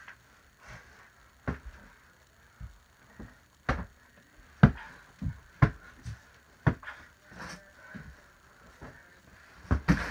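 Pillow fight: about a dozen irregular thumps and slaps as pillows hit bodies, the loudest about halfway through, with scuffling between the hits.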